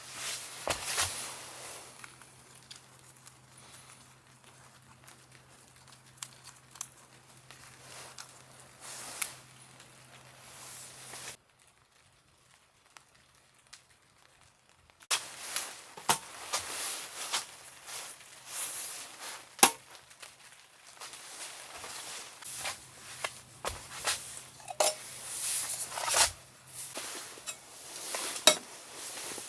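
Rustling, crinkling and sharp clicks and knocks of camping gear being handled, in irregular bursts, with a faint steady hum under it and a short break to near silence partway through.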